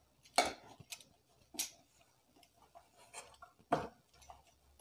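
Semolina dough being kneaded by hand in a stainless steel bowl: irregular sharp clicks and knocks, about two a second, as the hand works the dough against the bowl.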